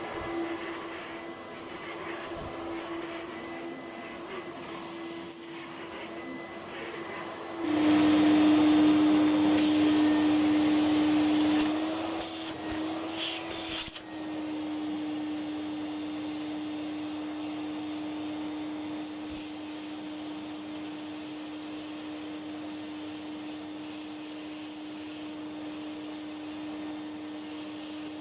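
A 1998 Electrolux Power System Z1740 upright vacuum cleaner running with a steady motor hum and rushing air. About eight seconds in it becomes much louder and its pitch dips slightly for about six seconds, then it settles back to a steady, quieter run.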